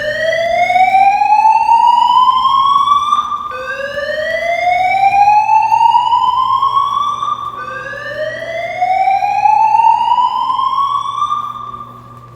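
Fire alarm voice-evacuation system sounding its slow-whoop evacuation tone: three loud rising whoops, each about four seconds long, one straight after another.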